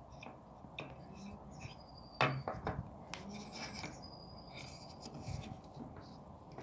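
Handling noise from a plastic ignition coil pack being turned over in the hand: faint rubbing with a few light clicks and one sharper knock about two seconds in.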